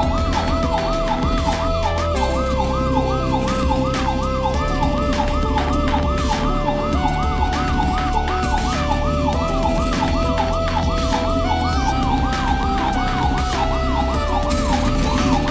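Toy fire engine's electronic siren wailing in quick repeated rises and falls, about three a second.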